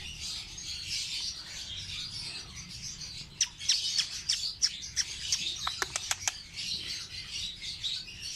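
Pet lovebirds chattering: a dense, continuous high twittering, with a run of sharp short squeaks between about three and six and a half seconds in.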